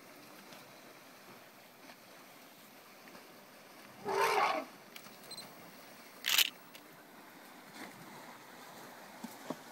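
African elephant blowing dust out of its trunk while dust-bathing: a short noisy blast about four seconds in, then a shorter, sharper one two seconds later, over a faint steady hiss.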